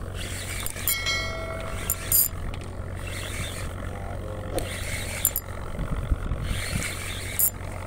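Steady low engine hum from the boat, with scattered sharp clicks as a spinning reel is worked to bring in a hooked grouper. About a second in, a brief bright chime sounds.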